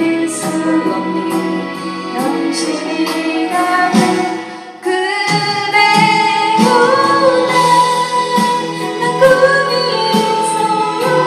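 A song with a woman singing in Korean over instrumental backing. It dips briefly just before five seconds in, then the next line comes in fuller.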